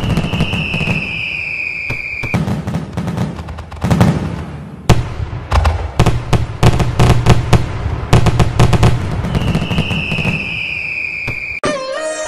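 Fireworks: a high whistle sliding slightly down in pitch, then a long run of bangs and fast crackling, then a second whistle. Instrumental music cuts in just before the end.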